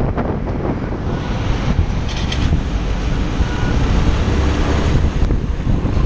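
Steady wind rushing over the action camera's microphone on a Yamaha R15 motorcycle at highway speed, over a low rumble of engine and road noise.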